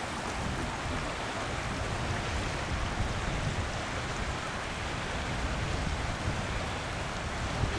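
Floodwater from a broken beaver dam rushing in a steady, even roar of water.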